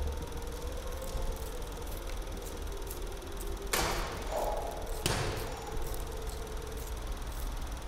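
Two short whooshing rushes of noise, about a second and a half apart, each fading quickly, over a steady low rumble.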